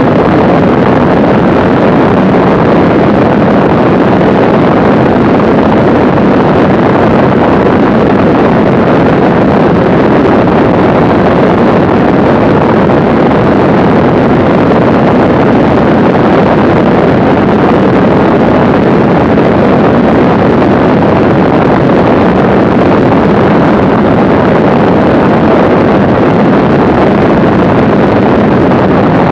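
Mooney M20C's four-cylinder Lycoming engine and propeller in level cruise flight, a loud steady drone mixed with heavy wind rush on the microphone.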